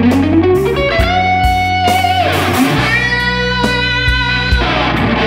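Overdriven high-gain electric guitar lead played on a Fender Stratocaster through a Mooer Micro Preamp 015 Brown Sound pedal's drive channel. It slides up over the first second, then holds long sustained notes, over bass and drums.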